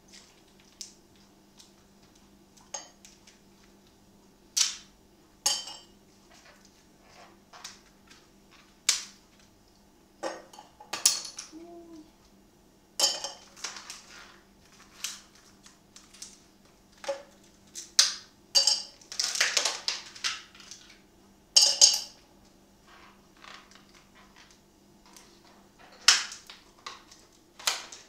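Ice cubes cracking loose as a plastic ice cube tray is twisted and pressed, and cubes clinking into a glass jar: irregular sharp cracks and clinks, with a quick run of them about two-thirds of the way through. A low steady hum sits underneath.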